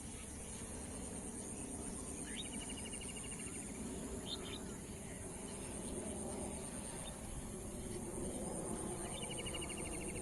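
Evening outdoor ambience: a steady, high pulsing insect chorus over low background noise. A bird calls twice, a rising note followed by a rapid trill about a second long, once a couple of seconds in and again near the end, with a short chirp in between.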